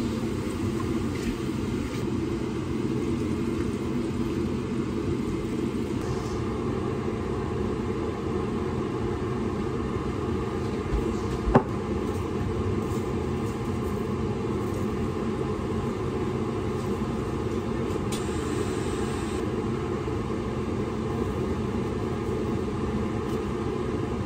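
Steady low rumble and hum of a kitchen fan or motor running, with one sharp click a little before halfway through.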